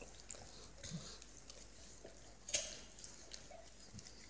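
Faint small mouth and breathing sounds from a drowsy yellow Labrador as a hand rubs its chin, with one sharp click about two and a half seconds in.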